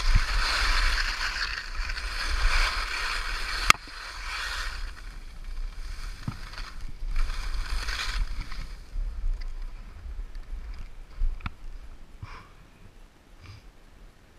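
Atomic skis hissing and scraping over snow as the skier turns down the slope, with wind rumbling on the microphone. The swishing is loudest over the first four seconds, with a sharp click about four seconds in, comes back in shorter swishes a few seconds later and dies down near the end.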